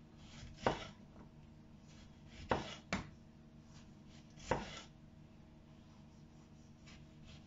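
Kitchen knife slicing through a tomato and striking a wooden cutting board: about four short, sharp knocks, a second or two apart.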